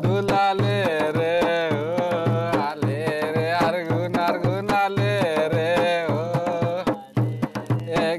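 Folk singing with drum accompaniment: a wavering, ornamented vocal line over steady drum strokes.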